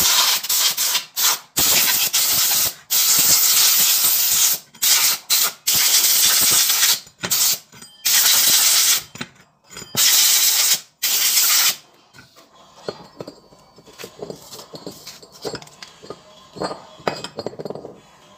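Compressed-air blow gun hissing in a run of blasts, some a second or two long, blowing clutch-lining dust off a scooter's CVT centrifugal clutch and clutch bell. The blasts stop about twelve seconds in, leaving light metal clinks and rubbing.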